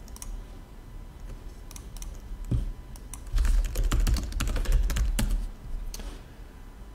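Typing on a computer keyboard: scattered keystrokes, then a quick run of them lasting about two seconds near the middle, dying away a second before the end.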